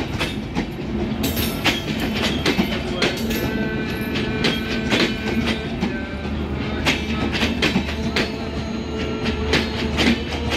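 Bangladesh Railway intercity passenger coaches rolling past close by, their wheels clattering over the rail joints in an irregular run of sharp knocks over a steady low rumble.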